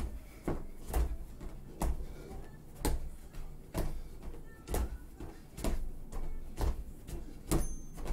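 Feet landing on padded gym mats during a stepping and knee-raising exercise, a dull thud about once a second. Near the end there is a short high electronic beep from the interval timer.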